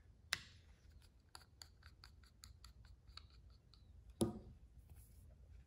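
Small T8 Torx screwdriver backing 2-56 screws out of a folding knife's handle: a faint run of rapid ticks and scraping as the driver turns, with a sharper click about a third of a second in and another just after four seconds.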